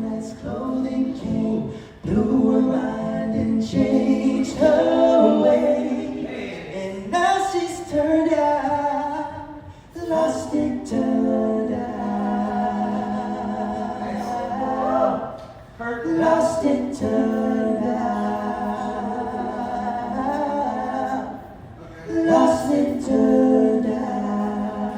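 A small group of voices singing together in harmony, in held phrases separated by brief breaths about every five to eight seconds.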